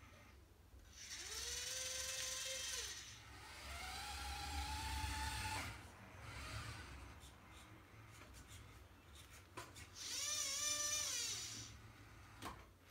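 Carson RC model forklift's small electric motors whining in three spells, each rising in pitch, holding, then falling away; the second spell cuts off abruptly. A couple of light clicks come near the end.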